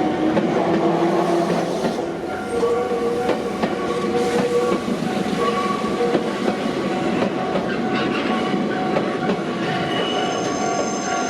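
Nankai Koya Line train running, its wheels squealing with held tones that come and go, over the clatter of the wheels on the rails.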